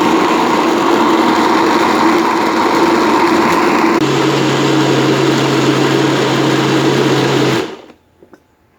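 Electric kitchen blender running steadily, then switched off about seven and a half seconds in; a low hum joins about halfway through.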